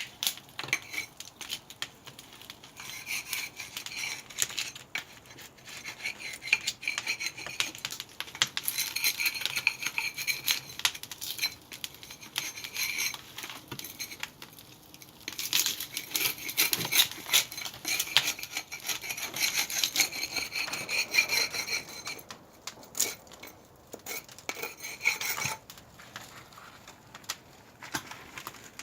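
Irregular rubbing, scraping and clinking of hard objects, with many sharp clicks that come in busy stretches.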